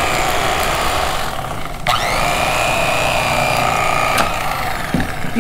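Electric fillet knife running while slicing a fillet off a large walleye, a steady motor whine with reciprocating blades. It cuts out briefly a little under two seconds in, spins back up, and stops a little after four seconds.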